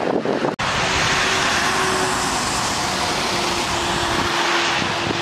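Road traffic on a wet carriageway: a steady hiss of tyres on wet asphalt with a faint low hum. For the first half second there is gusty wind on the microphone, then it cuts sharply to the road noise.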